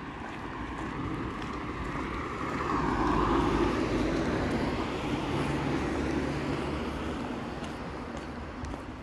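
A motor vehicle passing by: its engine and tyre noise grows louder to a peak about three seconds in, then slowly fades away.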